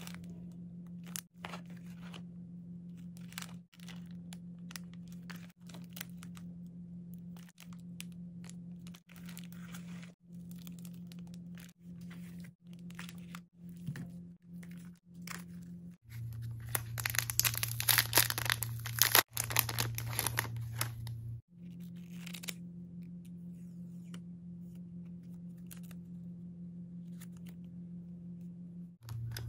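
Plastic packaging crinkling and rustling as small stationery items are handled and unwrapped, with scattered light clicks. The crinkling is loudest for about five seconds just past the middle. A steady low hum runs underneath, broken by brief gaps.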